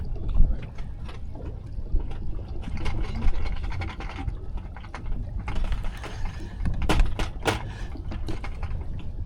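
Fishing reel being cranked, its gears ratcheting and clicking in spells, over a steady low rumble.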